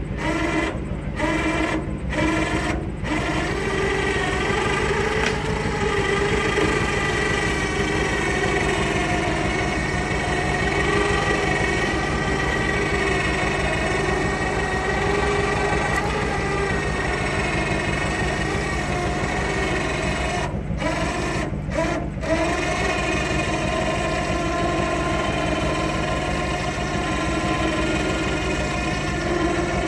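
3,000 lb electric ATV winch on a truck-bed crane whining under load as it hoists a firewood log, over a steady low hum. In the first few seconds it is run in short on-off bursts, and it stops briefly a few times about two-thirds of the way through.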